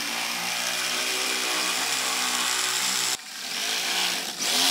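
Handheld power shear cutting sheet steel: a steady motor whine with a cutting hiss. It stops briefly about three seconds in, then runs again.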